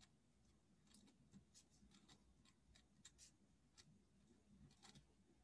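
Near silence with faint, irregular scratches and ticks of a pen writing on paper.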